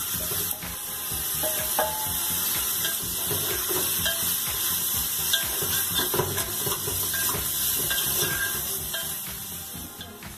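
Chunks of beef sizzling as they hit hot olive oil in an open pressure cooker pot, a steady hiss dotted with small clinks of a wooden spoon scraping the meat out of a steel bowl and stirring it. The sizzle eases a little near the end.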